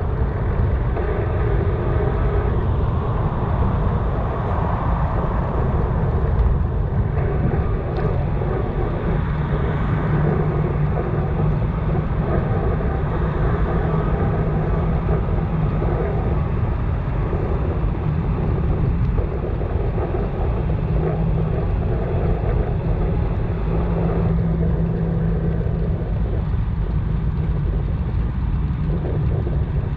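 Steady rush of wind on the microphone and road noise while riding a bicycle, heaviest in the low end.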